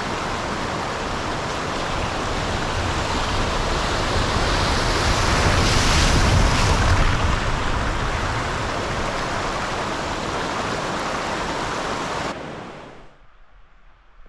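Fast water rushing over a flooded road ford and down a shallow stony river: a loud, steady rush that swells around the middle and falls away sharply near the end.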